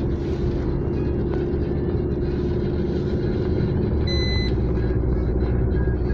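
Car driving along a town road, heard from inside the cabin: steady engine and tyre rumble with a constant low hum. A short, high electronic beep sounds about four seconds in.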